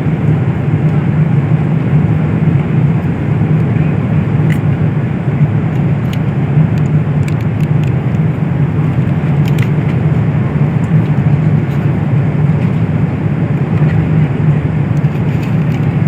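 Steady cabin drone of a Boeing 777 in flight, heaviest in the low range, with a few faint light clicks.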